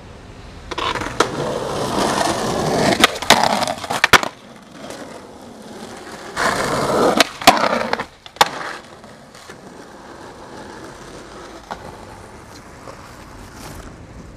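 Skateboard wheels rolling over rough pavement in two runs, each building up and ending in several sharp clacks of the board. A quieter stretch of street background follows.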